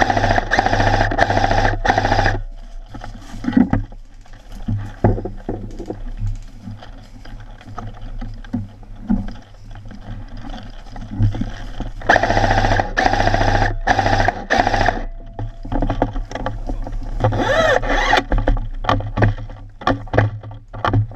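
Airsoft electric rifle firing long full-auto bursts, a fast even rattle of shots over the gearbox whine. There are three bursts: one at the start, a longer one past halfway, and a short one near the end. Between them come irregular footsteps and rustling through dry leaves and brush.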